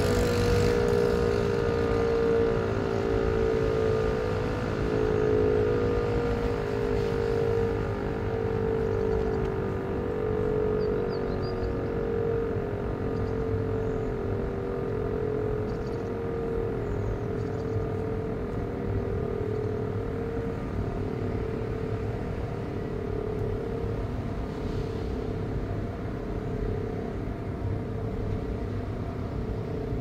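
DS977 electric motor siren sounding a steady test tone, pulsing in loudness about once every second or so. Its pitch sags slightly and its level slowly eases off.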